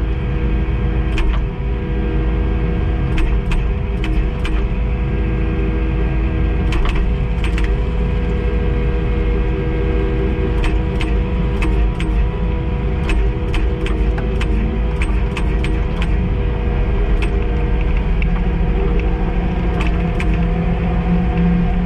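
Kubota skid steer's diesel engine running steadily while grading dirt with a grader attachment, a heavy low rumble with sharp clicks and clanks scattered throughout.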